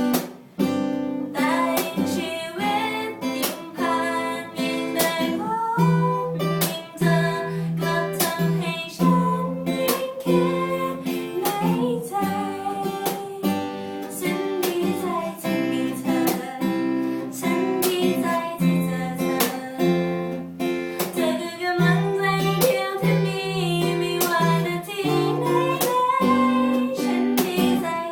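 Acoustic guitar strummed in a steady rhythm, accompanying a singer's voice: a song performed live by amateur musicians.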